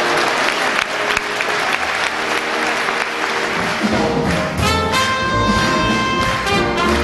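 Audience applause over held orchestral notes; about four seconds in, a trumpet comes in playing held notes over the orchestra, with low bass notes underneath.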